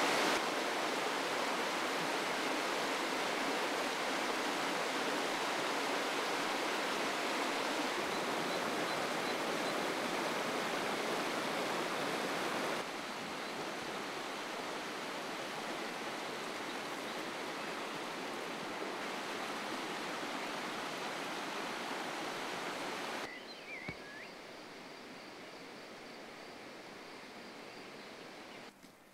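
Steady rush of flowing water, dropping in level twice.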